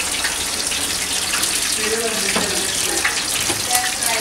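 Hot oil in a commercial deep fryer bubbling and hissing steadily as food fries in the wire basket.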